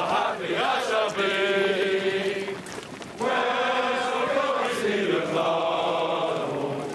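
A group of voices singing a slow song together in long held notes. The singing comes in two phrases, with a short break about three seconds in.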